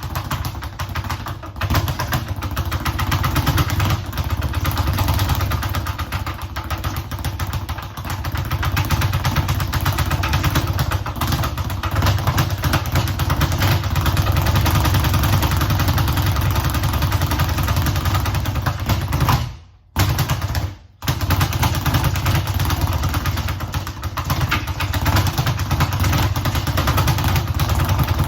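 Speed bag being hit in a fast, continuous rattle of rebounds against the board, broken by two short pauses about two-thirds of the way through.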